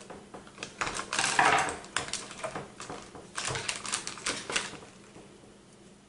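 Irregular clicks and taps of hard plastic as a small fan and its cable are pushed into a motherboard's plastic armor cover, with crinkling of a foil anti-static bag. The busiest handling comes about a second in, and it dies down near the end.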